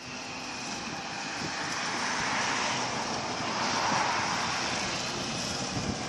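John Deere 8345R tractor pulling a grain trailer drives past close by. Its engine and running noise build to a peak about three to four seconds in, then ease slightly.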